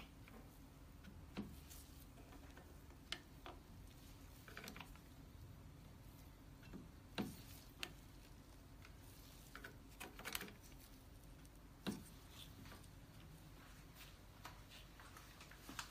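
Mostly quiet, with scattered faint clicks and light taps of small plastic parts being handled: ink dampers and fittings being pushed onto an Epson printhead on its carriage by gloved hands. A couple of sharper clicks come about seven and twelve seconds in.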